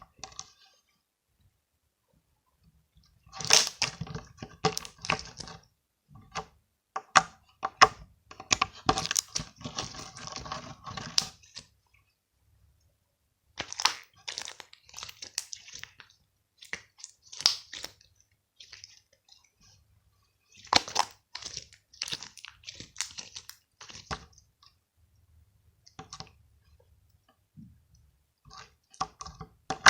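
Slime being squeezed and kneaded by hand, crackling and popping in bursts of a few seconds with short silent pauses between.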